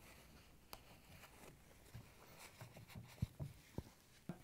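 Faint wiping of a paper towel inside a stand mixer's metal gear case, with a few soft knocks near the end.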